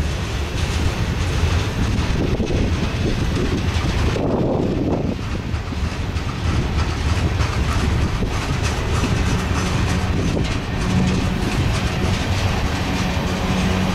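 Freight train of boxcars and tank cars rolling past close by: a steady rumble of steel wheels on the rails, with many small clicks. A low steady tone joins in about nine seconds in.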